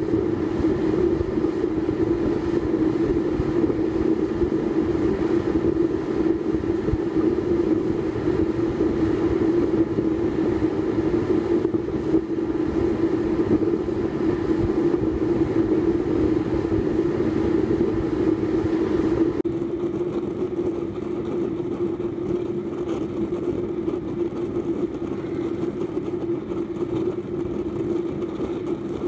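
Small waste-oil stove built from a fire-extinguisher shell, burning on forced air from a blower pipe: a steady roar of flame and blower with a strong low hum. About two-thirds of the way in, the hiss drops off suddenly and the roar goes slightly quieter.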